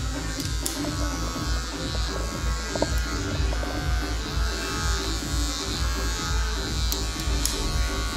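Electric hair clippers buzzing steadily as they cut hair at the side of the head, run over a comb. Background music with a steady beat plays underneath.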